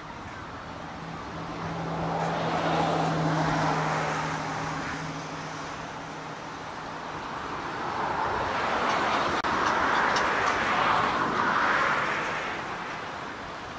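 Two cars passing one after the other, each a swell of tyre and engine noise that rises and fades; the first carries a steady low engine hum.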